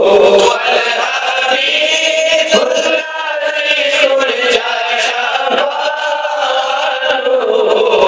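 A man singing an Islamic devotional hymn in a chanting style into a microphone, voice alone with no instruments, drawing out long held notes that waver in pitch.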